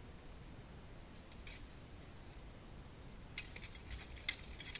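Steel swords and plate armour clashing in armoured combat: one faint metallic clink about a second and a half in, then a quick run of sharp clinks and clanks over the last second and a half.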